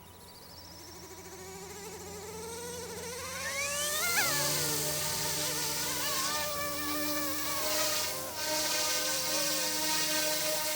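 Small brushless RC scale helicopter's rotors and motors spinning up, a rising whine over the first four seconds, then a steady buzzing hum at flying speed.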